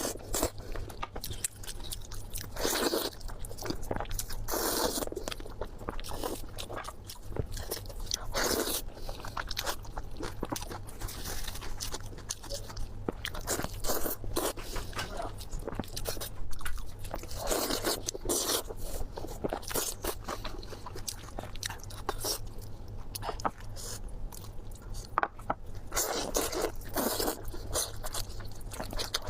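Close-miked eating: a person biting and chewing food, with repeated crunches and sharp clicks.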